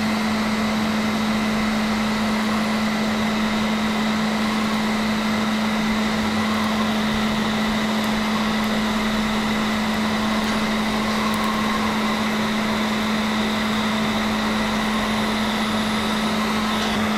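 Cold-air cooling blower running steadily, a constant rush of air with a low hum, aimed at the lips during laser treatment to carry off the heat.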